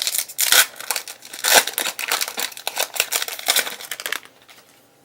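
Crinkly plastic wrapper of a Panini Hoops basketball card pack being torn open and crumpled by hand, a dense run of crackles that stops about four seconds in.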